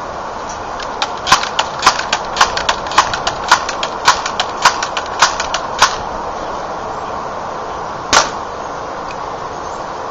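Crosman PowerMaster 760 air rifle: a rapid run of metallic clacks, about two a second, as the pump lever is worked stroke after stroke. About eight seconds in comes a single sharp crack as the rifle is fired.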